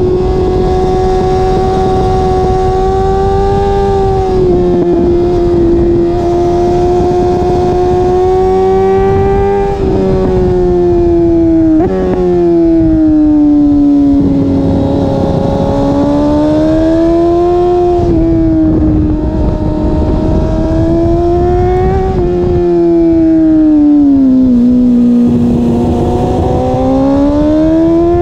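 BMW S1000RR's inline-four engine at high revs, heard close to the exhaust, its pitch holding high, then dipping and climbing again several times with a few sudden jumps as the rider changes gear and works the throttle through corners.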